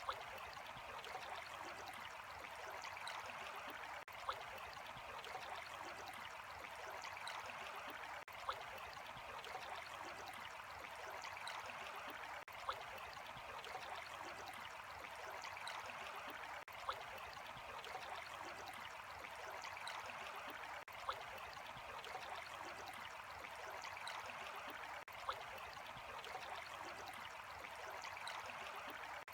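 Steady running water, a continuous splashing flow, broken by a short click about every four seconds.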